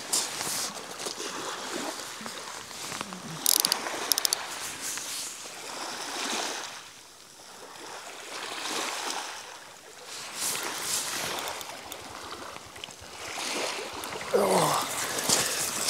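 Small waves washing over a shingle beach, swelling and easing every few seconds. A quick run of sharp clicks comes about three and a half seconds in, and a short rising squeak near the end.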